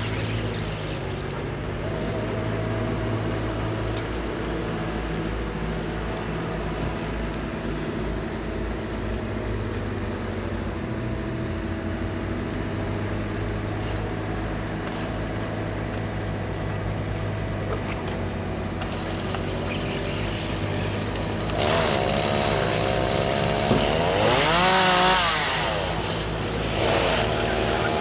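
A motor running steadily. From about three-quarters of the way through it gets louder, its pitch rising and falling repeatedly.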